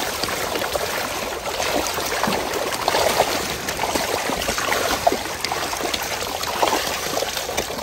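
Water trickling and splashing steadily, with many small splashes and drips.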